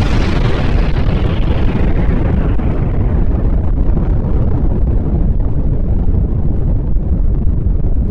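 Rumble of a huge nuclear explosion: a loud, deep, continuous rumble whose upper hiss slowly fades away while the low end holds steady.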